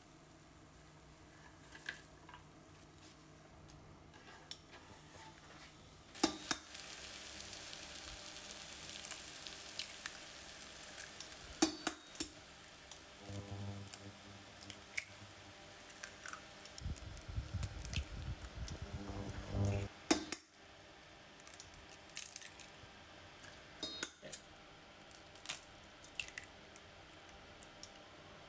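Kitchen handling sounds of onion rings being laid in a nonstick frying pan and eggs being tapped, cracked and dropped into it: scattered clicks and taps, a stretch of faint hiss early on, and a short low rumble about two-thirds through.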